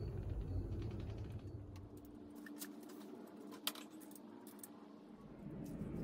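Scattered light clicks and taps of small plastic mount parts being handled, with one sharper click a little past the middle.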